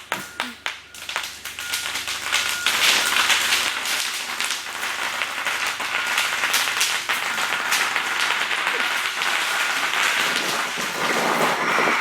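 Bubble wrap popping rapidly, many pops running together into a dense crackle that thickens about two seconds in.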